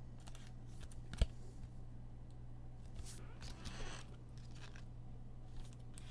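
Trading card packs and cards being handled: scattered light clicks, one sharp click about a second in, and a brief rustle of cards or wrapper a little past the middle, over a steady low hum.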